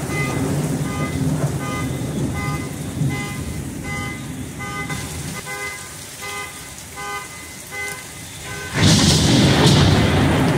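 Heavy rain falling, with a car alarm beeping over and over in a cycling pattern of short pitched tones. About nine seconds in, a sudden, much louder rush of storm noise breaks in and drowns it out.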